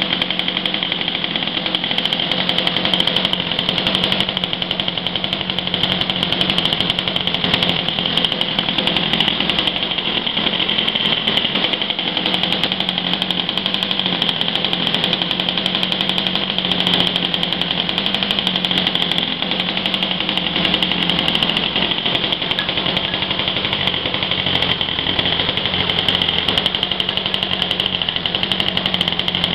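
ASP .28 A II two-stroke nitro glow engine in a model airplane running steadily at constant speed with a high-pitched buzz, its propeller spinning, during break-in.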